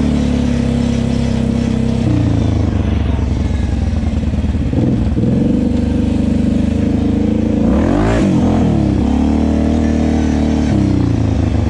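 Kawasaki KFX 700 ATV's V-twin engine running under changing throttle. Its pitch drops about two seconds in, then it revs up and back down sharply about two-thirds of the way through.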